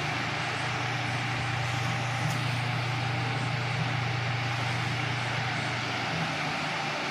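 Mondial Super Power 40 cm six-blade desk fan running steadily: a low motor hum under an even rush of air.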